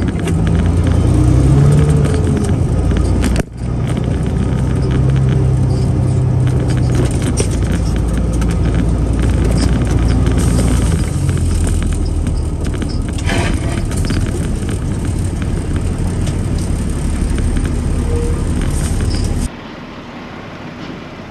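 Peterbilt 379 semi truck's diesel engine running loudly and steadily, with a brief dropout about three and a half seconds in. Near the end it falls away to a much quieter hum.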